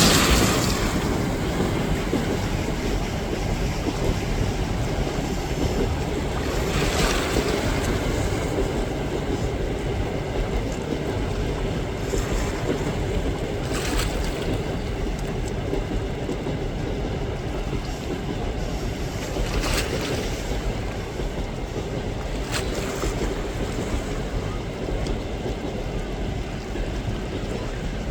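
Passenger train rolling past with a steady rumble mixed with wind and surf noise, with a sharp click every several seconds.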